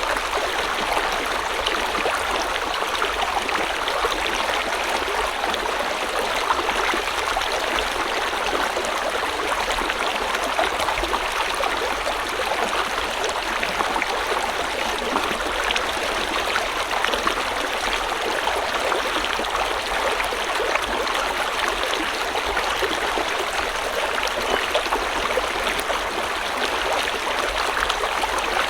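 A river or stream flowing steadily over rocks, a continuous rushing babble with small splashes and trickles.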